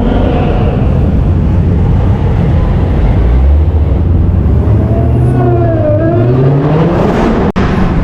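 Dodge Hellcat's supercharged 6.2-litre HEMI V8 running loud with a deep exhaust rumble, its pitch dipping and then rising as it revs up a couple of seconds before the end.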